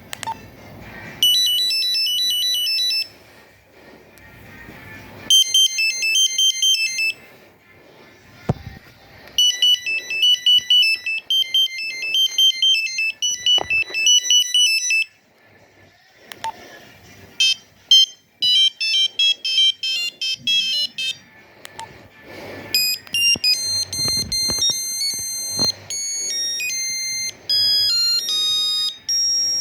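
Nokia 2100 mobile phone playing a series of its built-in monophonic tones, each a short melody of sharp electronic beep notes, about five in turn with short pauses between them.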